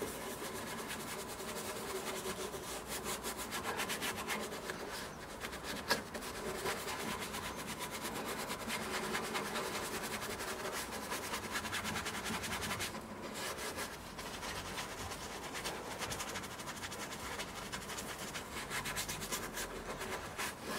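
Soft-bristle detailing brush scrubbing a degreaser-foamed plastic car door handle: steady, scratchy rubbing made up of rapid back-and-forth strokes.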